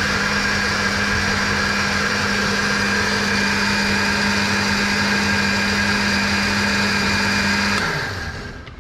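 Countertop electric blender running steadily at full speed, puréeing chilies with water into chili paste, with a constant motor hum over the churning. Near the end it is switched off and the motor winds down, its hum falling in pitch.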